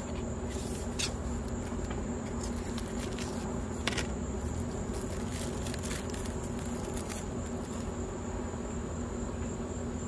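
Paper and clear plastic crinkling in scattered short crackles as a sticker is pulled from an envelope and its plastic sleeve, the strongest about one second and four seconds in. Under it runs a steady high buzz of insects.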